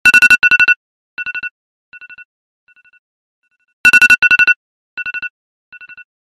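Electronic wake-up alarm ringing: a rapid two-tone trill in a pair of loud bursts, followed by repeats that fade away like echoes. The pattern starts again about four seconds in.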